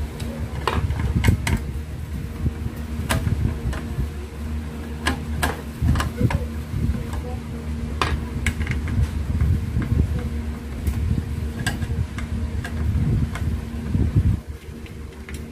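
Screwdriver clicking and scraping on the screws and sheet-metal back panel of an inverter arc welder as the exhaust fan's four mounting screws are taken out. The clicks are scattered over a steady low hum and rumble that drops away near the end.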